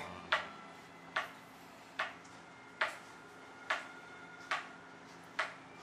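Kitchen knife cutting down onto a cutting board: seven sharp knocks, evenly spaced about one every 0.8 s.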